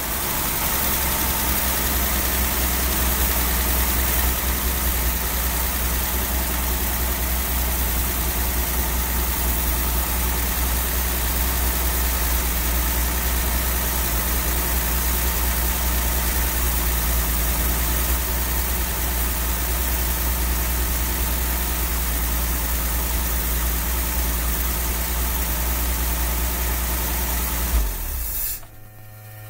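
Dodge A100's slant-six engine idling steadily on its freshly rebuilt Carter BBS carburetor, air cleaner off. The sound cuts off suddenly near the end.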